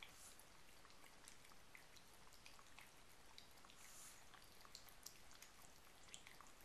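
Yorkshire terrier puppy lapping water from a bowl: faint, irregular wet clicks and small splashes.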